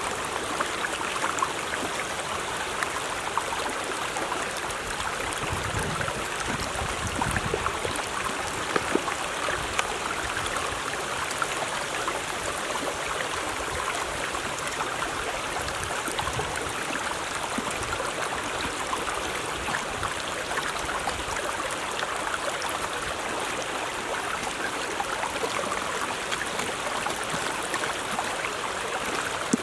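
Steady flowing water, like a stream trickling and splashing, with fine crackle throughout.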